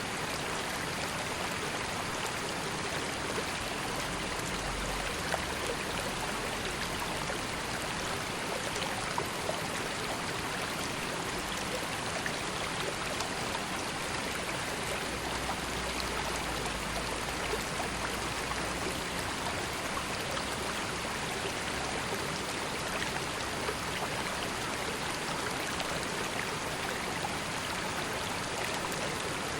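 River water flowing over stones, a steady rushing and babbling with small splashes.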